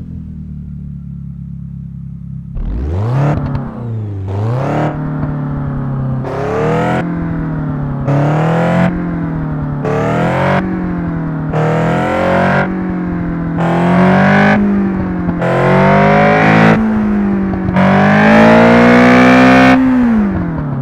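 Toyota 4A-GE 1.6-litre twin-cam inline-four idling, then revved in a quick series of throttle blips, each rising and falling back. It finishes with one longer, higher rev held for about two seconds before it drops back to idle near the end.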